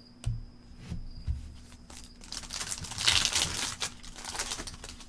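A football trading-card pack's wrapper being torn open and crinkled by hand, after a few soft knocks of card handling; the tearing and rustling start a little past the halfway point and are loudest just after it.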